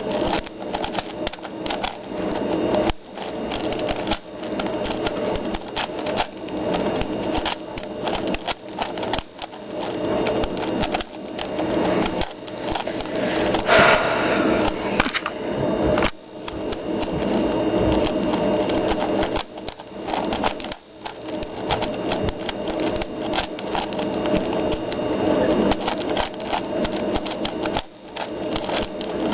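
Plastic 4x4 Rubik's Cube being turned quickly by hand, its layers clicking and clacking in rapid runs broken by a few brief pauses.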